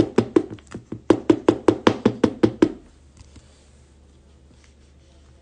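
A fast, even run of hollow knocks, about five a second with a short break about a second in, stopping about two and a half seconds in.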